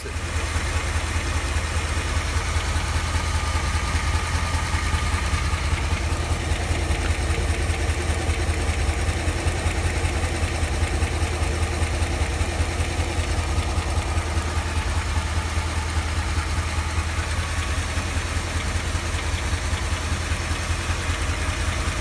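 International Harvester V8 gasoline engine idling steadily with a valve cover off, the rocker arms working in the open. Its cylinder 8 tested at 0 psi compression, which the owner puts down to a valve problem.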